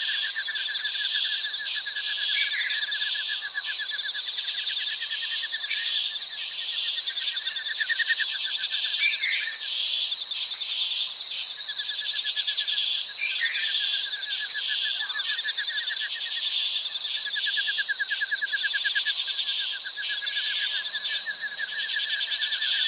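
Tropical jungle ambience: a dense, steady chorus of insects buzzing high, a rapidly pulsing trill that comes and goes, and scattered short bird calls. It cuts off suddenly near the end.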